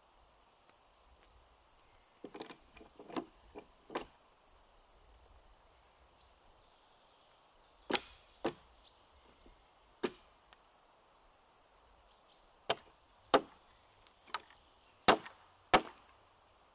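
Small hatchet chopping a thin dead pole: about a dozen sharp blows of the blade into wood, in irregular bursts with pauses between, the last two the loudest.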